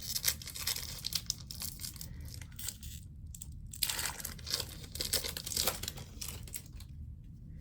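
An Upper Deck hockey card pack's wrapper being torn open and crinkled: two spells of crackly rustling with a short pause between them, stopping near the end.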